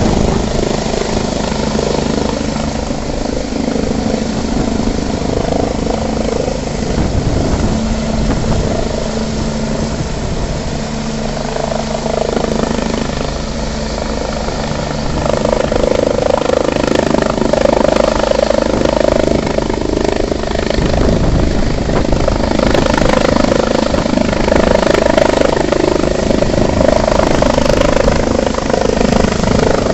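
Sécurité Civile EC145 rescue helicopter hovering low, a steady rotor and turbine drone with a constant pitch. It grows louder about halfway through.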